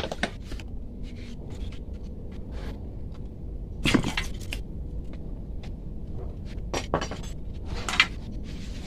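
A motorcycle throttle body being rinsed in petrol in a basin by hand: a few scattered clinks and knocks as it is moved about, the loudest about four and eight seconds in, over a steady low rumble.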